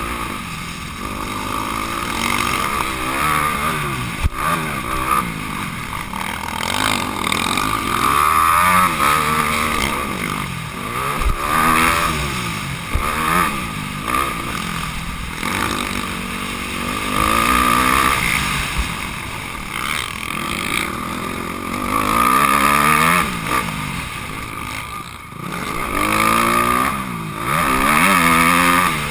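Honda CRF250R's single-cylinder four-stroke engine revving up and falling back again and again as the bike accelerates, shifts and slows around a dirt motocross track, heard up close from a camera mounted on the bike.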